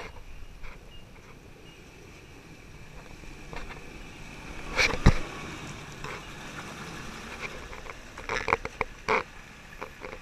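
Toyota Land Cruiser 80 Series four-wheel drive crawling along a muddy track past a low-mounted camera, its engine a low rumble. One loud sharp knock comes about halfway through, and a quick run of cracks and knocks follows near the end.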